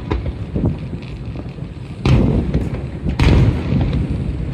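Aerial fireworks shells bursting: two loud booms about a second apart near the middle, each followed by a rolling rumble, with smaller bangs early on.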